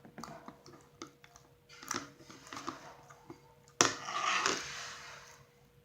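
Hands kneading and mixing slime with leftover glue: soft sticky squishes and small clicking pops, with a louder squelch and drawn-out sticky noise about four seconds in.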